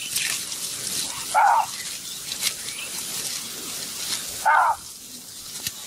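An animal giving short barks, twice, about three seconds apart, over a steady high hiss.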